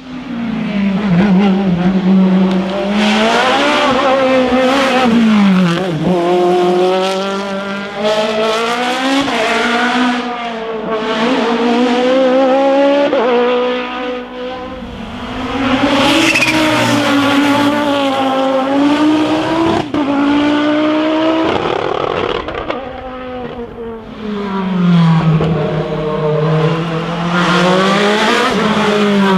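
Racing car engines at full throttle, revs climbing and dropping sharply over and over as the drivers shift gears and brake through the bends of a hillclimb course, with brief lulls between bursts.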